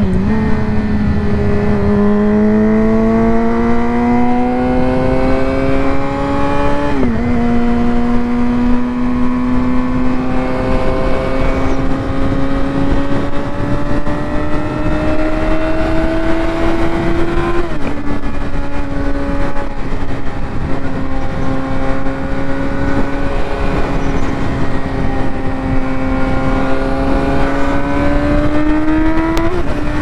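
Yamaha R6 sport bike's inline-four engine running hard on the highway, its pitch climbing slowly under steady throttle and dropping suddenly at each upshift: once about a quarter of the way in, once a little past halfway, and again near the end. Wind rushes over the helmet-mounted microphone beneath the engine.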